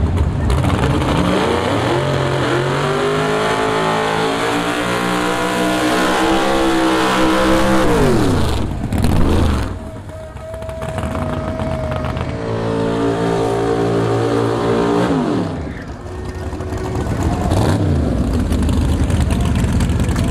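Drag-racing car engine at full throttle, its pitch climbing steadily for several seconds and then dropping sharply as the throttle is lifted. It happens twice, the second pull shorter, and ends in a steady running note.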